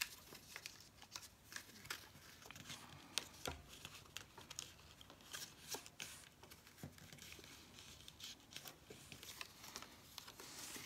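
Faint crackle and rustle of die-cut card stock being folded by hand along its pre-scored curved fold lines, with scattered small clicks.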